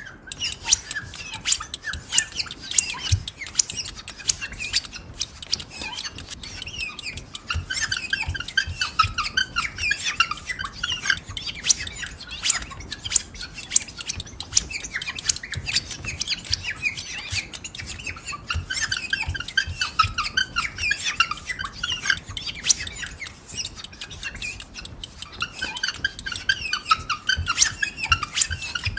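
Imitation birdsong made with household objects like kitchen utensils, combs and springs: a dense, continuous chorus of short high chirps and twitters, mixed with many sharp clicks.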